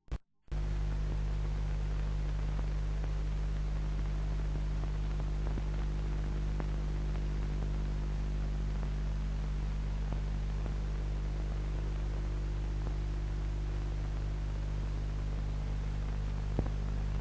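Steady electrical hum with hiss on an old film soundtrack, with no music or speech. It starts about half a second in, and a faint click comes near the end.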